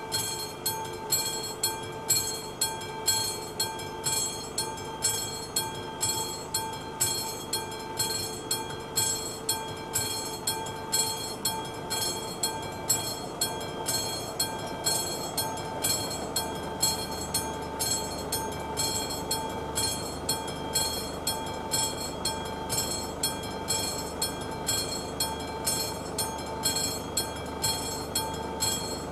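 Classic electric level-crossing bell on an AŽD 71 warning signal ringing continuously, struck in a fast, even rhythm of metallic strokes over a steady ringing tone. It is the crossing's active warning for an approaching train.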